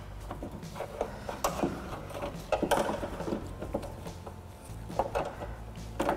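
Scattered light clicks, taps and rubbing as an exterior door handle and its latch rod are worked into the door of a 2000 Nissan Pathfinder, over a faint low hum.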